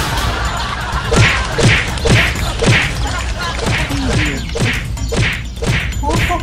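A rapid, even series of hit sound effects, about two a second, each with a quick downward drop in pitch, over a steady low hum.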